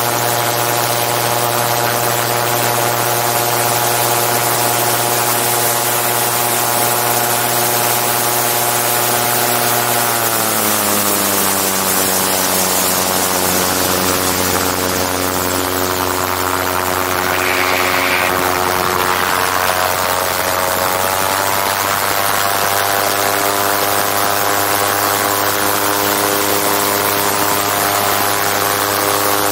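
Gyroplane's piston engine and propeller running steadily, heard from a camera mounted on the airframe, with a strong hiss of wind over it. About a third of the way in the engine note drops as the power comes back, and about two-thirds in it rises part of the way again.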